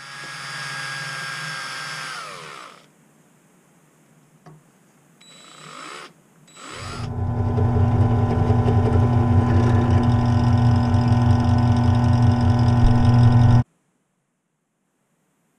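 Drill press motor running and drilling into an aluminium plate. A first short run winds down with falling pitch, brief starts follow, and then comes a steady run with a strong low hum that cuts off suddenly.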